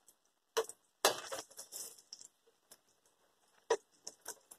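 Kitchen handling noises: paper towels on a plate rustle about a second in, then a metal slotted spoon clinks sharply against a stainless frying pan near the end, followed by a few light taps.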